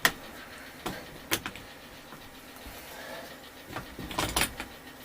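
Scattered sharp clicks and knocks of tools and parts being handled during motorcycle assembly: one at the start, two more about a second in, and a short rattling cluster about four seconds in.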